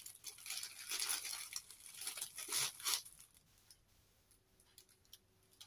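Clear plastic packaging rustling and crinkling as it is torn open and a folded piece of fabric is pulled out. The rustling stops about three seconds in, leaving only a few faint small handling clicks.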